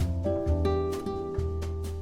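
Background music: a plucked guitar with a bass line and a steady beat.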